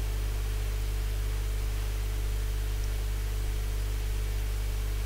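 Steady background hiss with a constant low electrical hum from the recording microphone; no other sound.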